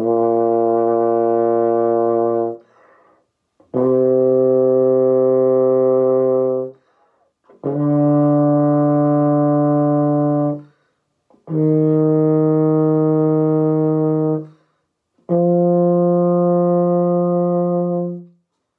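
Euphonium playing the concert B-flat scale from low B-flat up to F: five long held notes rising step by step, each about three seconds, with a short pause for breath between notes.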